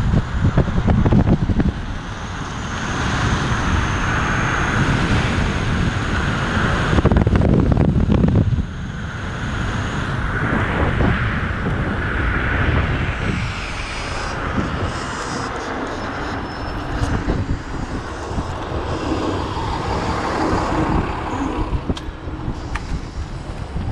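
Wind rushing over the microphone of an electric scooter ridden at speed, mixed with tyre and road rumble. It surges louder near the start and again around seven to eight seconds in, then drops back to a steadier rush.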